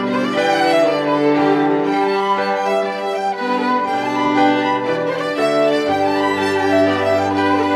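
Background music: bowed strings, led by a violin, playing slow, sustained notes.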